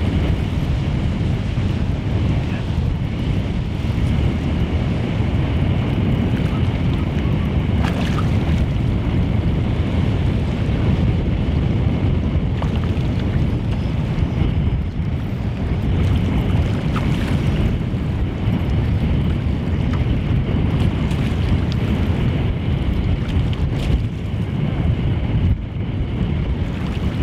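Wind buffeting the microphone over choppy sea water lapping at a pebble shore, a steady low rumble with no clear break.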